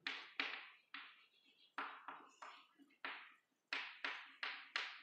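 Chalk writing on a blackboard: about a dozen short scratching strokes and taps, roughly two a second, each starting sharply and fading quickly.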